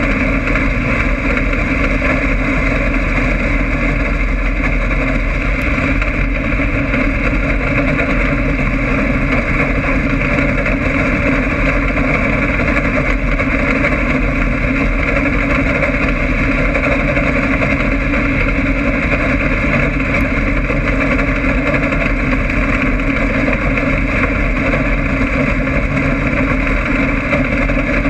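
Race car engine running at speed, heard from inside the car's cockpit as a loud, steady drone with no breaks.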